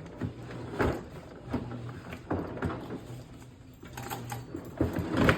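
Hard plastic Toughbuilt StackTech toolbox units knocking and clunking as they are handled and stacked, with several separate knocks and the loudest near the end. A washing machine runs steadily underneath with a low hum.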